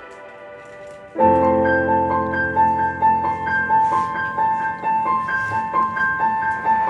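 A piano-led music intro, likely a backing track: a faint sustained chord, then about a second in, the piano starts with a repeating pattern of bright notes over held chords.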